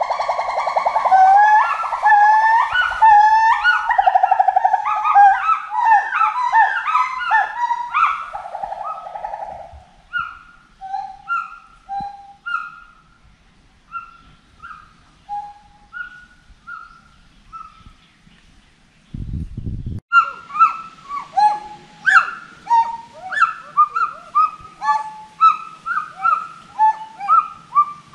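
Monkeys calling in long series of rising, pitched hoots that quicken, several animals overlapping at first, then thinning to scattered single notes by about ten seconds in. A brief low rumble comes at about nineteen seconds, and a fresh chorus of rising calls builds up after it.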